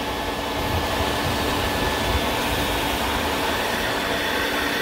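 Shop vac running steadily with a constant whine, its hose sucking up debris from around the open spark plug holes on a Jeep 4.0 cylinder head.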